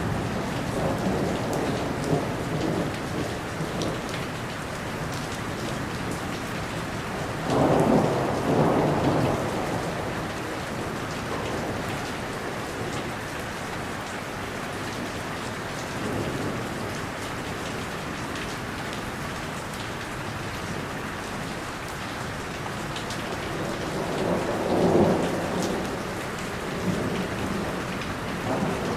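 Steady heavy rain falling in a thunderstorm, with rolls of thunder rumbling through it: one early on, a louder crack-and-rumble about eight seconds in, and another near the end.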